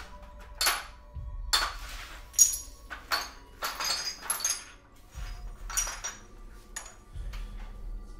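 Shards of a broken ceramic mug clinking, about a dozen sharp, ringing clinks spread unevenly through, over a low, steady music drone.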